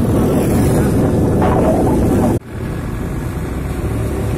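Wind rushing over the microphone mixed with road and traffic noise from a moving vehicle on a wet road. The sound drops out sharply for a moment about two and a half seconds in, then returns.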